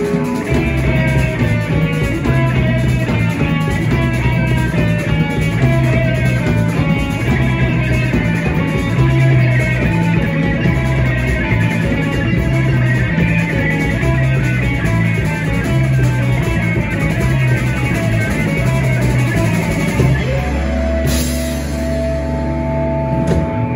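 Live rock band playing an instrumental passage on two electric guitars, electric bass and drum kit, over a repeating bass line. About 20 seconds in the beat stops, and held guitar notes ring over a cymbal crash before the low end cuts off suddenly near the end.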